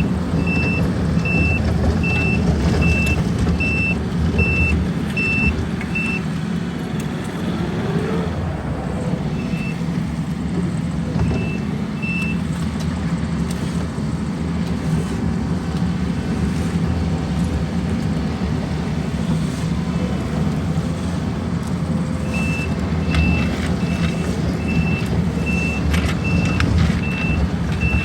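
Diesel engines of heavy asphalt-paving equipment running steadily, with a vehicle's reversing alarm beeping at an even pace for the first six seconds, briefly again around ten to twelve seconds in, and once more near the end.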